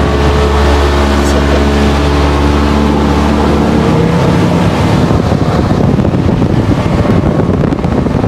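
Motorboat engine running under power as the boat travels at speed. About halfway through, the steady engine tone gives way to a rougher rush of wind and water.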